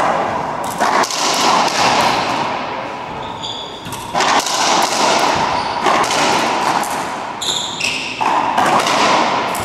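Racquetball rally: a series of sharp hits as the ball cracks off racquets and the court walls, each ringing in the reverberant court, with high sneaker squeaks on the hardwood floor twice.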